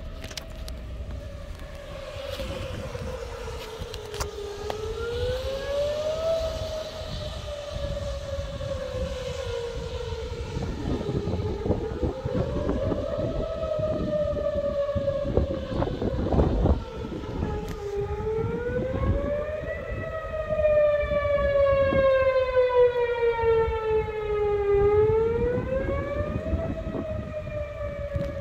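Outdoor tornado warning siren sounding its wail, the signal that a tornado warning is in effect. The pitch rises quickly and then falls slowly, repeating about every six to seven seconds. It grows louder and fuller from about two-thirds of the way in, with a low rumble underneath.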